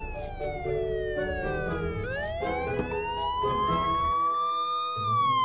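Fire station alarm siren wailing: its pitch falls slowly for about two seconds, then rises for about three and starts to fall again near the end. Background music plays under it.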